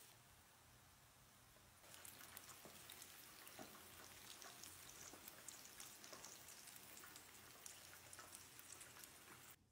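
Hot oil sizzling and crackling as breaded nugget balls on skewers deep-fry in a pot. Softer at first, louder from about two seconds in, then cut off suddenly near the end.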